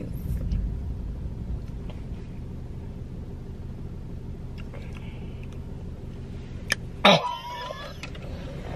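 Quiet sipping and swallowing from a glass jar of moonshine cherry juice over a steady low hum in a car cabin. About seven seconds in, a woman lets out a long wavering "ooh" with her voice swooping in pitch, reacting to the alcohol's burn.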